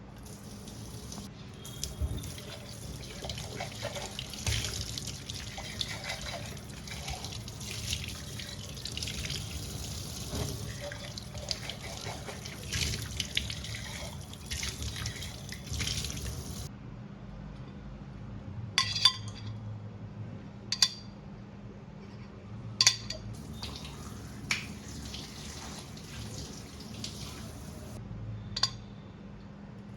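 Tap water running into a sink and splashing for about sixteen seconds, then shut off. After that come five sharp clinks of kitchenware being handled, spread a few seconds apart.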